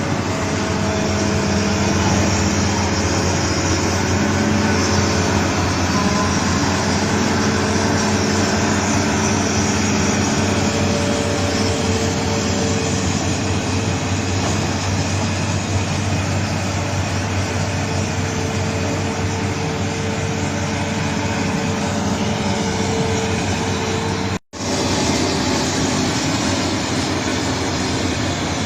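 Heavy diesel mining machinery running steadily with a deep, even engine hum. It cuts out for an instant about three-quarters of the way through, then carries on.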